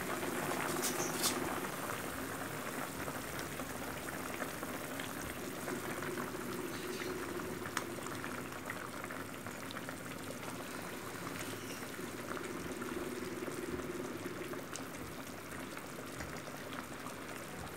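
Spiced broth with chicken pieces boiling in a nonstick pan, bubbling steadily at a full boil.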